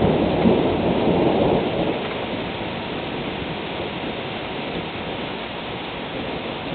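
Steady rain falling, with a rumble of thunder that dies away about two seconds in.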